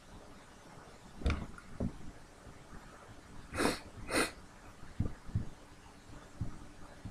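Two short breaths close to the microphone, about half a second apart, among several soft low thumps.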